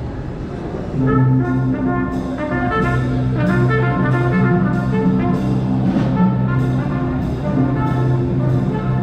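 A small jazz band playing live. A trumpet carries the melody over drums with a steady cymbal beat, coming in about a second in.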